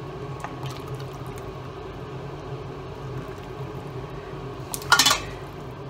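Broth poured from a ladle into a bowl of noodles, a short splash about five seconds in, over a steady background hum.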